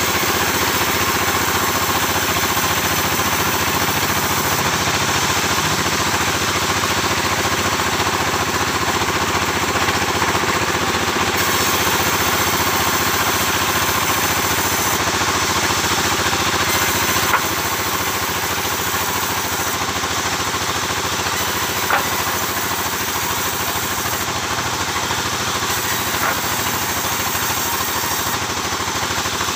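Engine-driven sawmill running steadily, with a few sharp clicks; the noise drops slightly in level a little past the middle.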